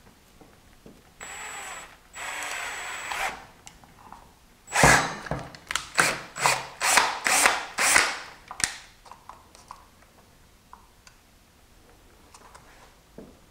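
Power drill spinning up in two short runs, then drilling two mounting holes through a motorcycle's servo case cover in a quick series of about seven short, loud bursts.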